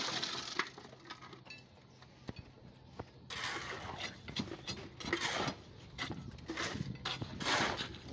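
Wet concrete with stone aggregate sliding into timber stair formwork, then a steel rebar rod jabbed again and again into the fresh concrete to compact it, a gritty scraping stroke roughly every two-thirds of a second from about three seconds in.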